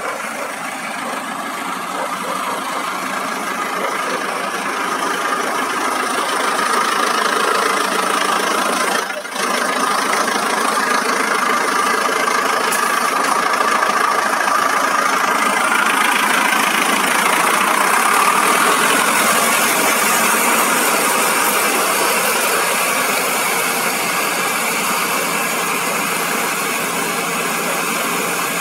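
Fire engine idling steadily, growing somewhat louder over the first few seconds, with a brief dropout about nine seconds in.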